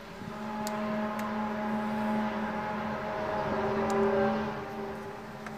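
A long, eerie drone of several steady tones sounding together, like a distant horn, swelling to its loudest about four seconds in and then fading. It is one of the unexplained 'strange sounds' heard in the open air, and its source is unknown. A few faint clicks sound over it.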